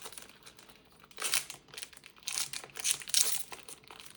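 Foil booster pack wrapper crinkling and being torn open across the top, in several short rustling bursts.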